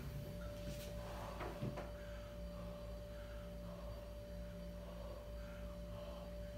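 Quiet room tone: a steady electrical hum with a faint steady whine above it, and a couple of soft knocks about one and two seconds in.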